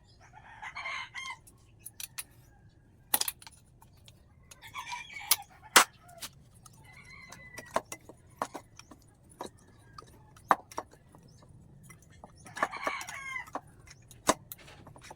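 A rooster crowing three times, each call about a second long, among frequent sharp metallic clicks and clinks of hand tools on engine parts.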